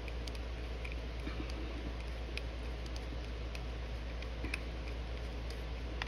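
Screwdriver turning the slotted screw that holds the choke housing to a Quadrajet carburetor body, giving faint, irregular small clicks over a steady low hum.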